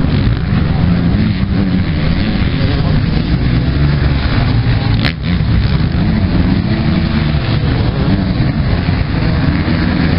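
Several motocross bikes racing on a dirt track, their engines revving and changing pitch as they accelerate and shift. A single click about halfway through.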